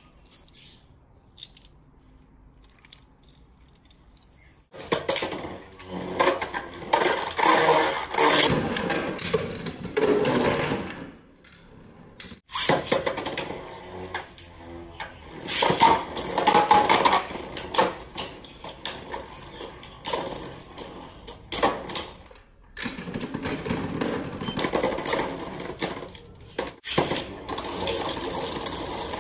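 Beyblade Burst spinning tops whirring and clattering against each other and the walls of a plastic stadium. There are three stretches of this: one starting about five seconds in, one that cuts in abruptly around twelve seconds in, and one near the end after a short quiet gap.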